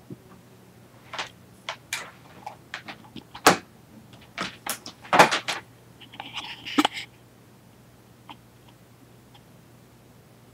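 Handling noise as the camera is moved about: a quick, irregular run of clicks, knocks and bumps, loudest about three and a half and five seconds in, with a short rustling scrape near seven seconds.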